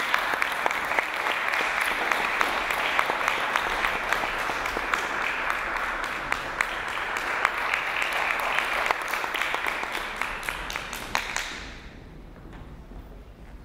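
Audience applauding, the clapping dying away about eleven and a half seconds in and leaving quiet room sound.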